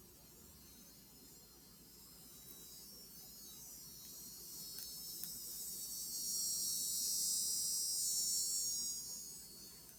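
Cicadas buzzing outside, their high-pitched drone swelling gradually louder, peaking in the latter half and then dying away near the end.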